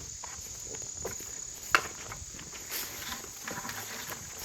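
Insects giving a steady, high-pitched drone, with scattered soft footfalls and rustles and one sharp snap about two seconds in.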